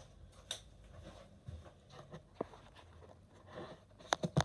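Quiet room with a few faint scattered clicks and taps, then a quick run of sharper clicks near the end.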